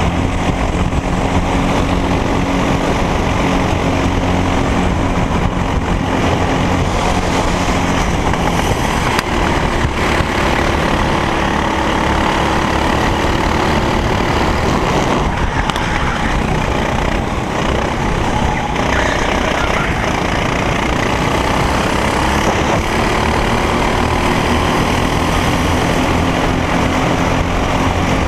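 Racing kart engine running hard, its pitch sagging and climbing again several times as the kart slows for corners and accelerates out of them.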